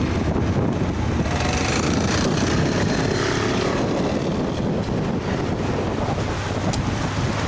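Wind rushing over the microphone of a moving camera, with a steady low rumble from the vehicle carrying it.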